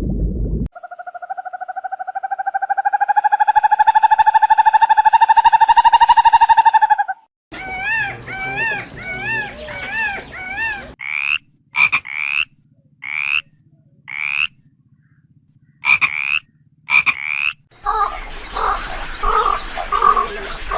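A sequence of different animal calls. First a long pulsed trill holds for about six seconds, rising slightly in pitch. Then comes a quick warbling call, then a run of about nine short, high, upward-sweeping chirps, and near the end a noisier, rougher call.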